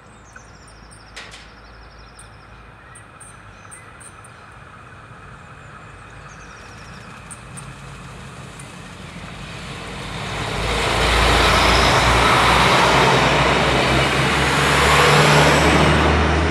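Diesel multiple unit approaching and passing close by: faint at first, then growing louder until its diesel engine and wheels on the rails are loud from about ten seconds in.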